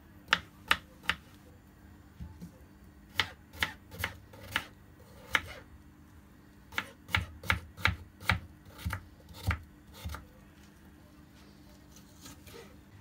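Kitchen knife dicing a peeled potato into small cubes on a wooden cutting board: sharp knocks of the blade against the board in three short runs, stopping about ten seconds in.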